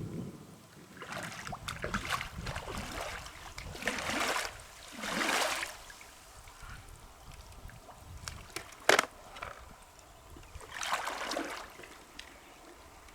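Water splashing and sloshing in several short swishes, with one sharp knock about nine seconds in.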